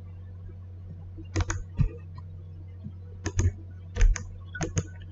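Computer mouse clicks in about five quick clusters, over a steady low electrical hum.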